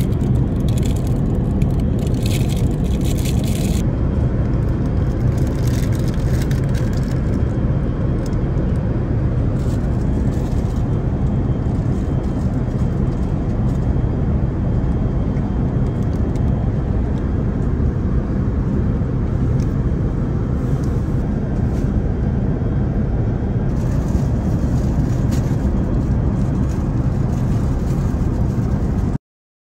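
Steady rushing cabin noise of an Airbus A380 in cruise, heard inside the upper-deck economy cabin, with light clicks and rustling in the first few seconds and again near the end. It cuts off abruptly just before the end.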